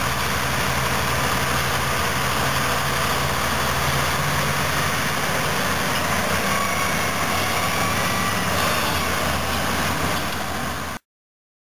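Heavy diesel engines of a Caterpillar D10N dozer, repowered with a C27, and a Caterpillar 651B scraper running under load as the dozer push-loads the scraper. The sound is steady and cuts off abruptly near the end.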